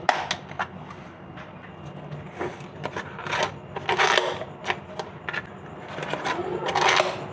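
Irregular scraping and rustling handling sounds, as in fruit-salad preparation, with the loudest swishes about four seconds in and again near the end.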